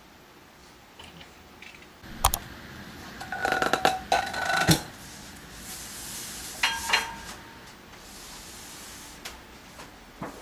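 Hard objects being handled, clinking and knocking together. A sharp knock comes about two seconds in, then a quick run of clinks with brief ringing tones, and one more ringing clink near seven seconds.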